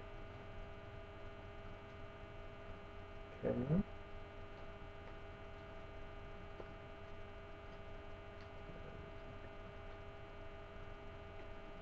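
Steady electrical hum made of several level tones at a low level. About three and a half seconds in, a brief murmur from a man's voice.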